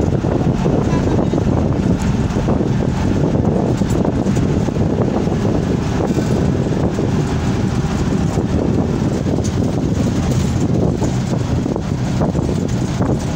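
Steady road and engine noise from a moving vehicle, with wind buffeting the microphone through an open window.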